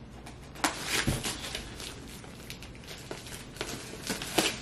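Scissors and crinkling plastic film as the protective plastic is cut and pulled off a wooden picture frame: scattered crackles and snips, with a low knock about a second in.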